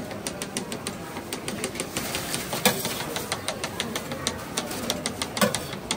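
Rapid, irregular clicking and clacking as small egg-shaped cakes are flicked out of a metal mould griddle with a hand tool and drop onto a steel tray, with a couple of louder clacks. A low steady hum runs underneath.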